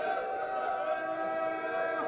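Men's voices chanting long, steady held notes of a Shia Muharram lament, sung without instruments, as a congregation responds in a latmiya.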